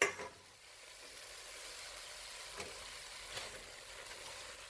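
Chicken and onion sizzling in olive oil in a cast iron stock pot: a steady, faint hiss, with two light ticks a little past the middle.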